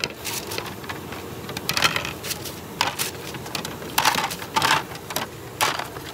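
Irregular clatter of knocks, taps and short scrapes as utensils and containers are handled, with a few louder bursts about two seconds in and again around four seconds.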